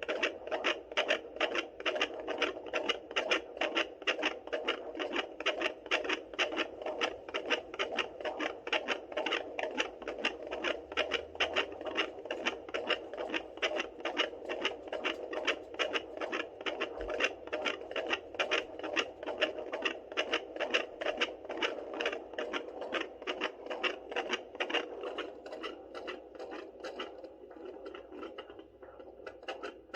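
Handheld fetal doppler picking up a 32-week fetal heartbeat: a fast, even run of whooshing pulses that grows fainter near the end.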